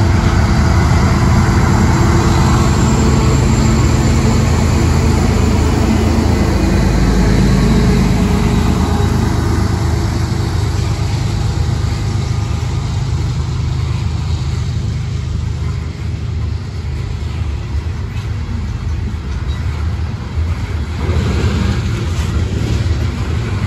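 A long freight train of coal hopper cars passing close by: mid-train diesel locomotives run with a deep steady engine drone that eases after about ten seconds, leaving the steady rumble and rattle of steel wheels on the rails as the hoppers roll past.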